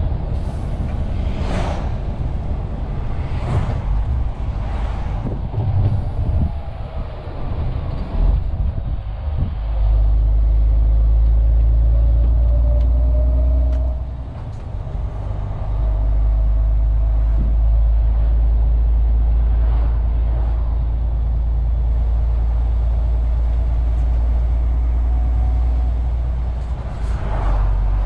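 MAN TGX 470 lorry's diesel engine running, heard from inside the cab while driving. The first third is uneven, with knocks and rattles; then the engine settles into a strong, steady low drone that dips briefly once and picks up again.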